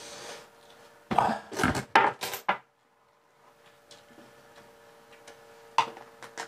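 Clatter of glasses and dishes on a table: a quick run of loud knocks and clinks about a second in, lasting a second and a half, then a few light clicks near the end, over a faint steady hum.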